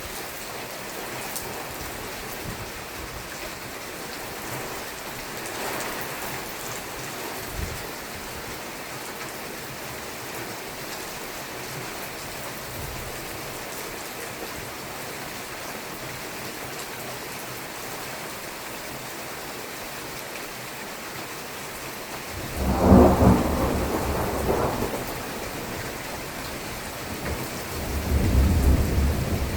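Steady rain falling throughout. About 22 seconds in, a sudden loud crack of thunder rolls into rumbling for a few seconds, and a second rumble of thunder builds near the end.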